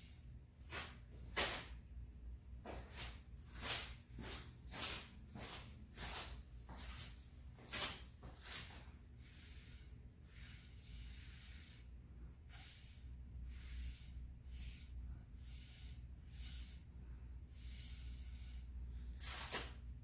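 Breath blown in short puffs through a drinking straw onto wet acrylic pour paint, a breathy hiss. The puffs come about twice a second for the first half, then fewer, with a longer, louder puff near the end.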